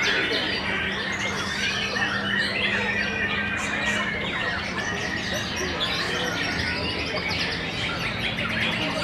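Several caged white-rumped shamas singing at once: a dense, unbroken tangle of overlapping whistles and chirps. A faint steady hum sits underneath.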